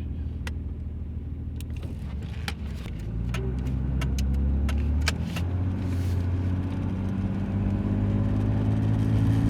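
BMW 7 Series straight-six engine, running on freshly cleaned injectors, as the car pulls away. Its note rises steadily from about three seconds in, with a few short sharp clicks along the way.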